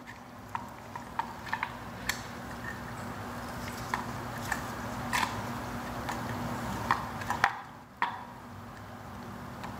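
Light, scattered clicks and taps of gloved hands handling the plastic pool-pump housing while seating a lubricated gasket, over a steady low hum.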